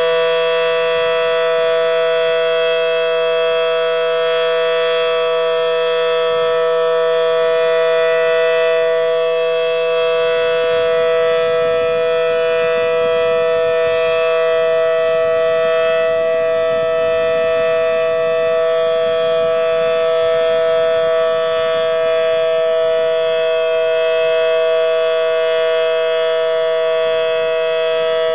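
Federal Signal Model 7T outdoor warning siren sounding the Alert signal: one loud, steady, unwavering tone made of two pitches sounding together, with no rise or fall.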